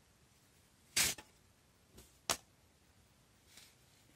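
Cardboard pom-pom templates being slid off a tied yarn pom-pom: a short scraping rustle about a second in, a sharp click a little after two seconds, and a faint rustle later, with quiet between.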